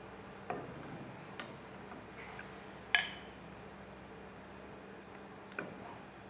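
Metal ladle clinking against the aluminium cooking pot and glass serving bowl as curry is ladled out: four light clinks, the loudest and most ringing about three seconds in, over a faint steady hum.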